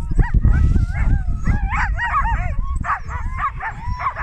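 A team of harnessed sled dogs yipping, whining and barking over one another in a constant chorus of rising and falling calls: excited dogs waiting in line, eager to start running.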